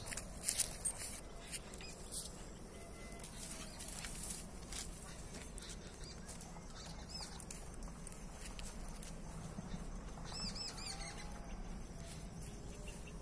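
Quiet outdoor sound of walking on a dirt track: scattered footstep clicks and rustling, loudest about half a second in. A few short, high chirps come about ten seconds in.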